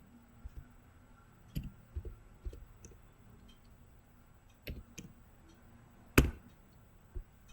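Scattered clicks of a computer mouse and keyboard being worked, roughly one a second at uneven spacing, with one sharper, much louder click a little over six seconds in.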